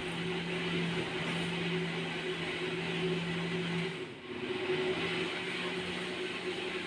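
Steady hum of a small electric motor with an even hiss. The hum dips briefly about four seconds in, then resumes at a slightly higher pitch.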